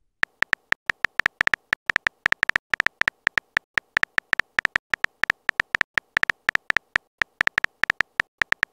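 Simulated phone-keyboard typing clicks from a texting-story app: a rapid, unevenly spaced run of short ticks, about seven a second, one per letter as a message is typed out.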